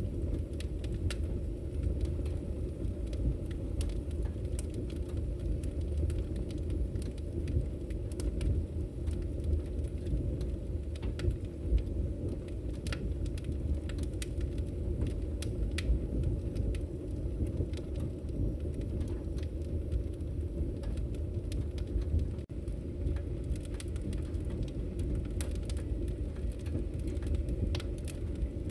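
Campfire burning: a steady low rush from the fire with frequent sharp, irregular crackles and pops of burning wood.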